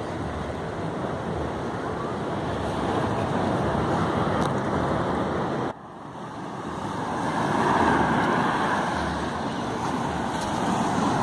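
Sea surf washing and breaking against a rocky shore: a steady rushing, which drops away suddenly about halfway and then swells up again as another wave comes in.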